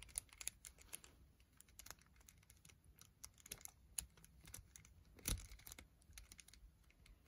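Faint, scattered clicks and taps of plastic 3x3 speed-cube pieces being handled and pressed into place as a corner piece is fitted into the partly reassembled cube, with one sharper click about five seconds in.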